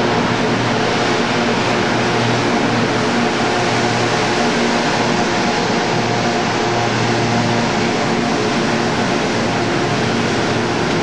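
Class 92 electric locomotive crawling past at low speed, its traction cooling fans giving a loud, steady roar with a low hum underneath.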